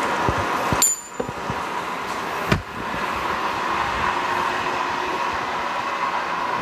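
Steady frying hiss of a flatbread pancake cooking in a pan, with a ringing clink a little before a second in and a sharp knock about two and a half seconds in as the spatulas are set down on the counter.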